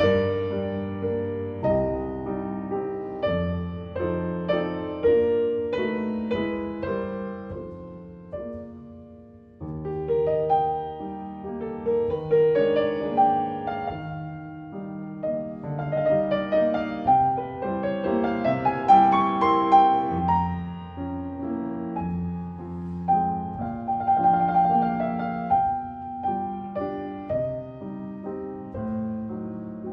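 Instrumental piano music: a slow, gentle piece with chords and melody notes, fading down about eight seconds in before a new phrase begins about a second later.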